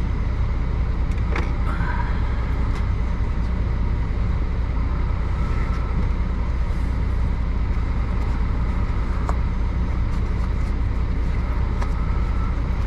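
Truck engine idling: a steady low hum, with a few faint clicks and rustles over it.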